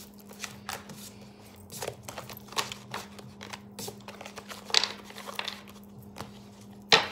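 A deck of tarot cards shuffled by hand: a run of soft riffling and slapping, with two sharper snaps, one near five seconds in and a louder one just before the end, over a steady low hum.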